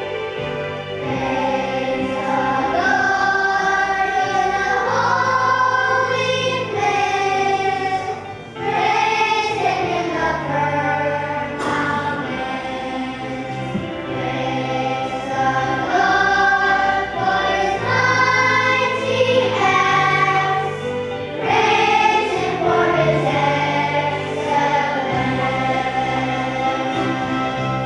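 A children's choir singing a gospel song over a backing track with a steady bass line.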